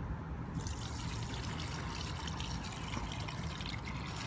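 Cloudy rice water and soaked rice poured from a glass bowl into a plastic colander, a steady splashing pour that starts about half a second in.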